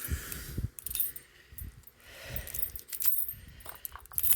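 A locked Defiant padlock being tugged and rattled, its shackle clinking against the body and its attached keys jangling, in a series of irregular metallic clicks and clinks; the shackle holds, showing the lock is shut.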